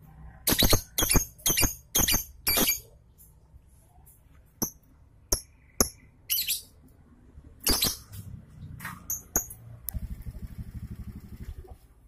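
Caged lovebird giving short, shrill chirping calls: about six in quick succession in the first few seconds, then single calls scattered after.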